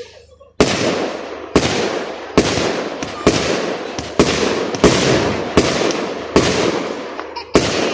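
Fireworks display going off in a rapid run: about nine loud bangs, roughly one a second, each followed by a fading tail that runs into the next.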